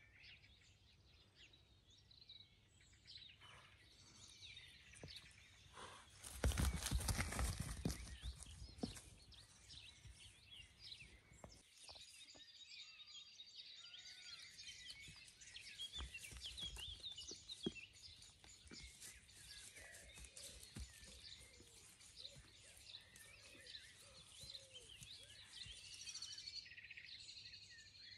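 Faint chirping and singing of wild songbirds throughout. About six seconds in, a loud burst of noise lasting a couple of seconds, with a few scattered soft knocks later.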